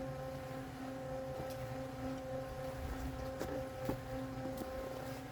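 A machine engine running steadily with a constant hum, a few faint clicks over it.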